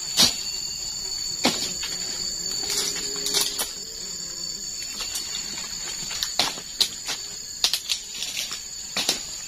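Cut oil palm fronds being gathered and dragged over dry litter, giving irregular sharp crackles and snaps, with the loudest just after the start. A steady high-pitched insect drone runs underneath.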